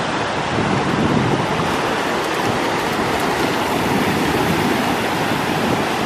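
Steady rush of ocean surf washing up the shore, with wind rumbling on the microphone.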